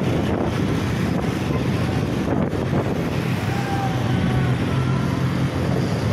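Motorcycle engine running steadily while riding at street speed, with wind noise rushing over the microphone.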